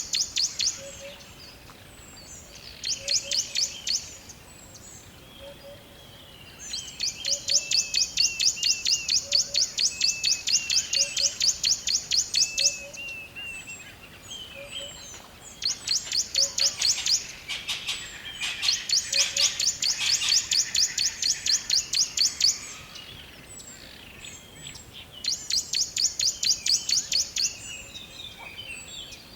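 Forest songbirds calling: runs of rapid, evenly repeated high chirps, each lasting one to six seconds, with pauses between. Under them, another bird gives short rising notes, and a soft low note repeats about once a second.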